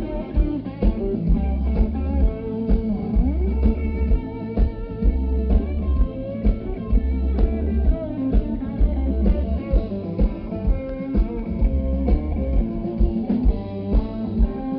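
Live blues band playing an instrumental passage: a guitar lead with bent notes over bass and a steady drum beat.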